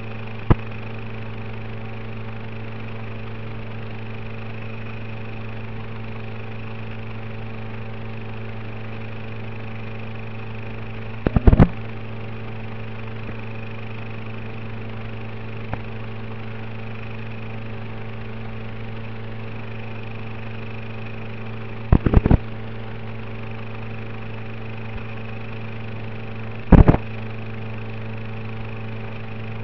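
Steady electrical hum of fixed, unchanging tones, broken by four short loud crackles: a single click just after the start, then bursts about 11, 22 and 27 seconds in.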